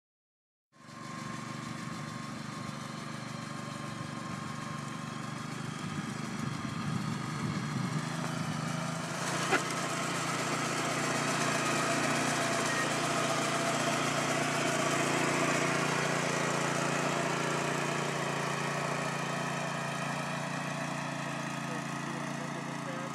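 Barber Sand Man walk-behind sand cleaner's engine running steadily as the machine works through bunker sand. The sound cuts in suddenly under a second in, with a single sharp click about nine and a half seconds in.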